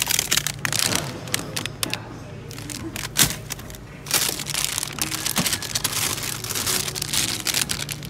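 Plastic ice lolly wrappers crinkling and rustling as a hand rummages through them in a freezer basket, with irregular crackles and one louder crack about three seconds in.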